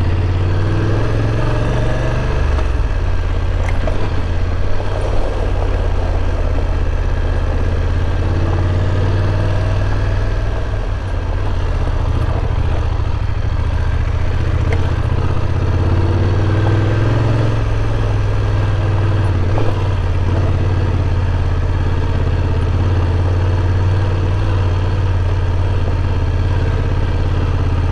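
BMW F850 GS's parallel-twin engine running steadily as the motorcycle is ridden along at low, even speed. The engine note dips briefly about eleven seconds in and picks up again a few seconds later.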